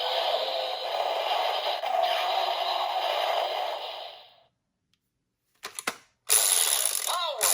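Kamen Rider Vulcan Rampage Gatling Progrise Key toy playing an electronic finisher sound effect through its small speaker, which cuts off about four seconds in. After a short silence come a few clicks, then a loud ratcheting, whirring sound near the end.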